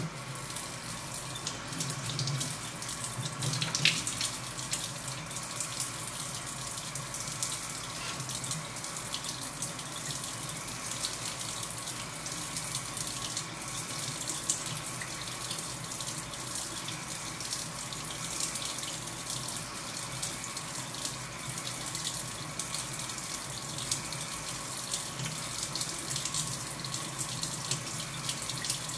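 Kitchen faucet running a steady stream of cold water into a stainless steel sink and over a glass wine bottle, while hot water is poured onto the bottle from a metal pitcher. The alternating hot and cold water is thermal-shocking a scored bottle so that it splits along the score line.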